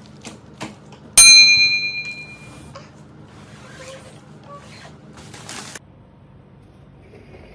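A single bright bell ding about a second in, ringing out and fading over about a second and a half: the notification-bell sound effect of a subscribe-button animation.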